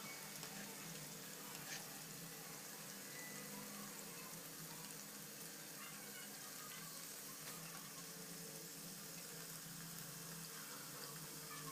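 Papri dough rounds deep-frying in hot oil in a kadai: a steady sizzling hiss with scattered small crackles.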